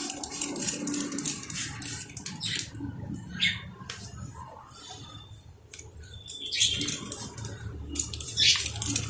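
Water squirted from a plastic bottle onto a motorcycle chain, splattering and dripping off the chain and sprocket, with irregular clicks and clatter; a quieter stretch in the middle.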